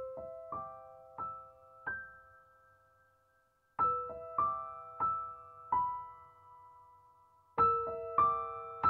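Background music: a soft piano plays slow, rising phrases of single notes, each note ringing out, with a new phrase starting about every four seconds.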